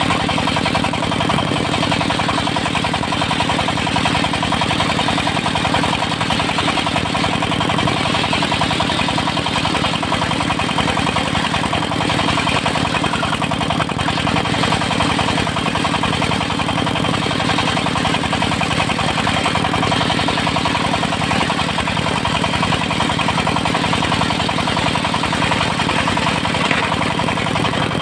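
Engine of a portable circular sawmill running steadily at constant speed.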